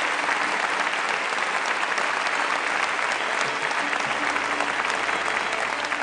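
Concert audience applauding: many hands clapping at a steady, even level.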